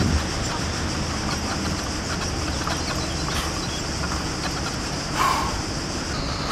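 Steady outdoor background noise: a low rumble under a faint hiss, with a brief higher sound about five seconds in.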